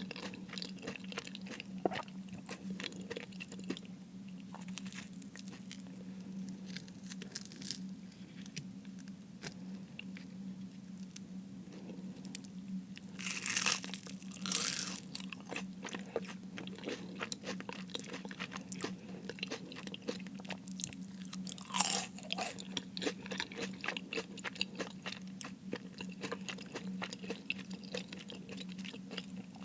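Close-miked chewing and crunching of crispy fried food, with a few louder crunchy bites around the middle and again a little later. A steady low hum runs underneath.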